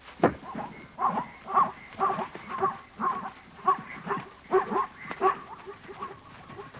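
A sharp thump about a quarter second in, then plains zebras calling in alarm: a run of yelping, bark-like calls about twice a second.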